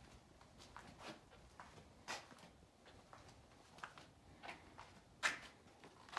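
Faint footsteps scuffing on a concrete floor: a few soft, irregular scuffs and ticks, the sharpest about five seconds in.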